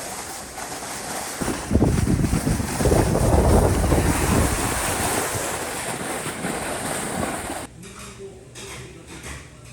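Wind buffeting the microphone: a loud rushing noise with heavy low gusts, which cuts off suddenly near the end into a quieter scene.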